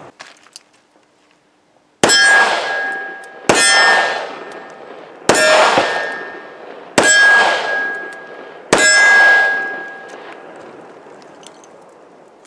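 Five shots from a Taurus 85 Ultra-Lite .38 Special snub-nose revolver firing +P loads, spaced about a second and a half apart, each followed by the ringing clang of the struck steel target.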